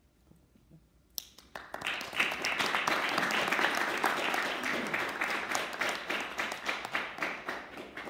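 Audience applauding: it starts about a second in, fills out quickly into many overlapping claps, and thins out near the end.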